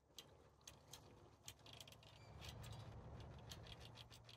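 Faint fishing reel being wound in, giving irregular light clicks a few times a second over a steady low rumble.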